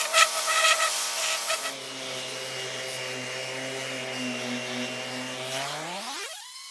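Electric orbital sander running with its pad rubbing on the old paint of a steel compressor tank. About a second and a half in, the hum drops to a lower pitch, and near the end its pitch rises steeply.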